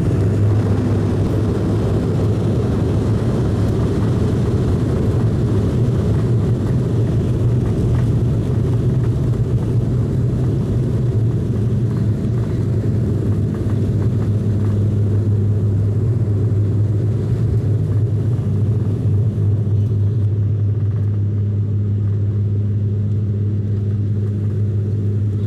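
Cabin noise of a De Havilland Canada Dash 8 Q400 turboprop at takeoff power: a loud, steady, deep propeller drone over a rumble of engine, airflow and tyres as the airliner rolls down the runway, lifts off and climbs.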